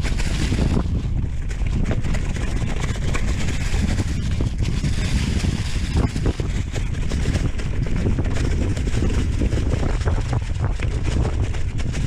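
Wind buffeting the microphone of a mountain bike descending a trail, over tyres rolling and crunching on dry leaves and rocks, with frequent small knocks and rattles from the bike.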